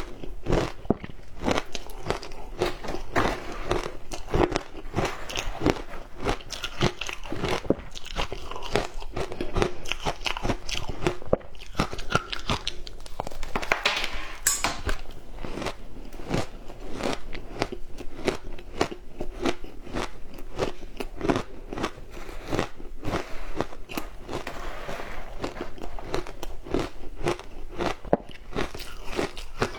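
Frozen matcha ice being bitten and chewed: a continuous run of sharp, brittle crunches several times a second.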